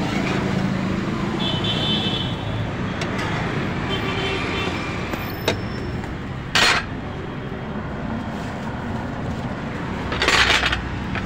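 Steady hum of road traffic. A short scrape of a steel spatula against the frying pan comes about six and a half seconds in, and a brief rough rustling burst comes near the end.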